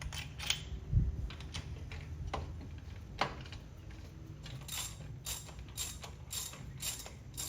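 Ratchet wrench working bolts, with scattered clicks and a knock in the first half, then steady ratcheting strokes about two a second.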